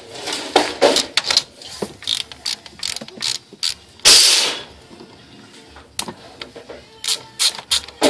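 Hand socket ratchet clicking in short, irregular runs while backing out bolts under an intake manifold, with one louder half-second rasp about four seconds in.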